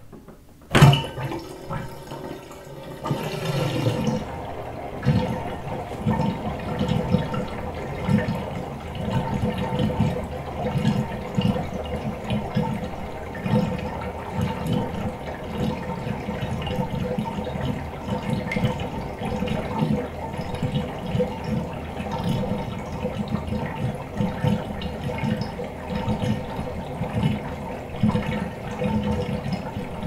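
Fiberglass bathtub draining, water gurgling down the drain in an irregular run of low pulses that builds up over the first few seconds and then holds steady. A sharp knock about a second in is the loudest moment.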